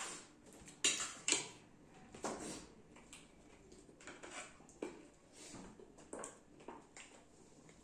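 Cutlery clinking and scraping on a plate during a meal, with a couple of sharp clinks about a second in and softer scattered taps after.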